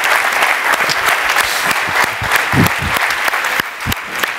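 Large audience applauding, with dense, steady clapping.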